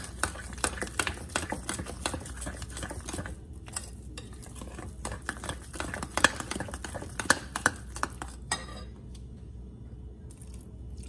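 Metal spoon stirring thick almond-flour dough in a glass bowl, with rapid, irregular clinks of the spoon against the glass and the soft scrape of the dough. The stirring stops about eight and a half seconds in, leaving only a few light clinks.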